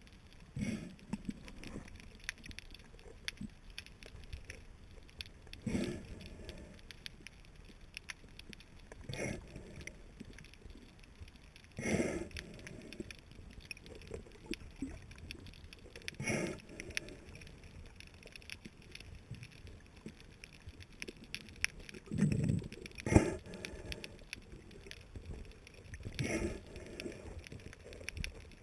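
Muffled underwater noise through a GoPro HERO 2's waterproof housing: surges of water movement every three to five seconds over a faint continuous crackle.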